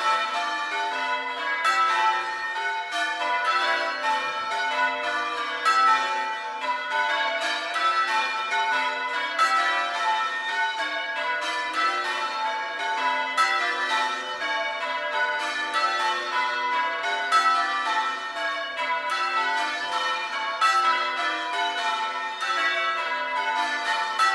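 A ring of six church bells (tenor about 7 cwt, in A) being rung in English change ringing, the bells striking one after another in a steady, unbroken rhythm.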